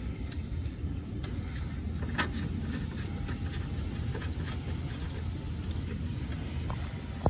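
Semi truck's Mercedes-Benz diesel engine idling steadily with the hood open, a low even rumble with a few faint clicks.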